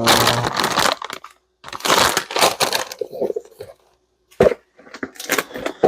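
Plastic food packaging being handled and crinkled, in loud crackling bursts with a run of sharp snaps near the end.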